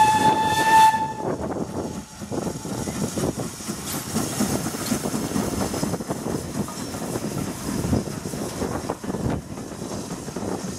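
British Railways 'Standard 4' class 2-6-4 tank steam locomotive No. 80104 sounding one steady whistle blast that ends about a second and a half in. The engine then works past close by with steam hissing, followed by its coaches rumbling over the rails.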